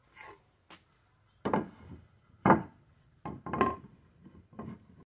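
Pieces of wood knocking and bumping: five or six separate knocks at uneven times, the loudest about two and a half seconds in.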